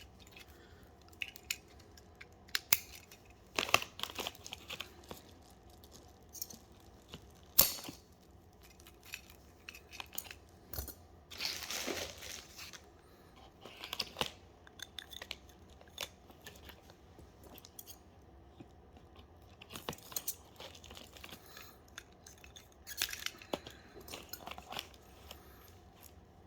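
Hand tools and fingers working an Ethernet patch cable: scattered clicks, snips and short rustles as the outer sheath is cut back and the wires are handled. The sharpest click comes about seven and a half seconds in, and a longer rustle comes around twelve seconds.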